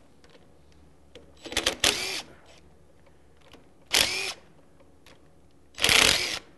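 Cordless DeWalt 20V impact driver loosening bolts on a vacuum pump's end cover, running in three short bursts about two seconds apart.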